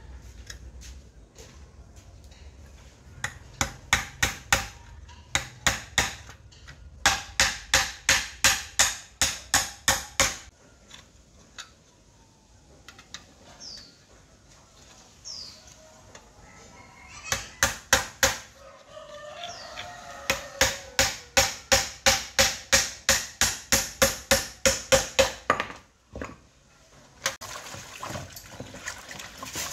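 Hammer striking a nail through a thin metal sheet on a wooden block, punching holes to make a homemade grater: runs of quick sharp metallic taps, about three a second, broken by pauses. A rooster crows in the background, and near the end water from a hose runs into a plastic basin.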